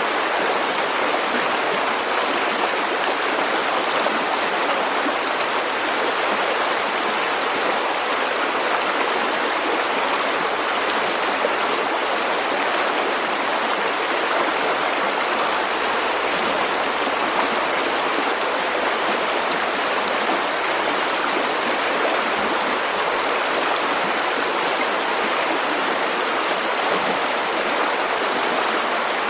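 River water flowing and rushing over rocks in a steady, even stream.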